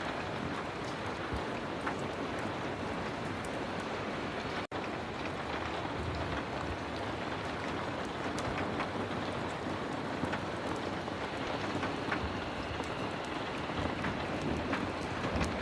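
Heavy rain falling steadily, with scattered small clicks through it and a split-second dropout about a third of the way in.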